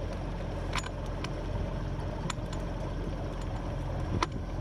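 A sailboat's engine running steadily as the boat motors out, a low even hum, with a few light clicks and knocks on deck and a sharper knock near the end.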